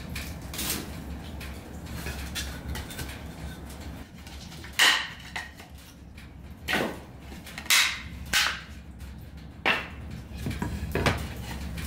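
Thin split-wood kindling sticks clacking and knocking as they are handled and laid into a wood-burning stove. There are a few faint knocks, then about six sharp, louder ones from about five seconds in.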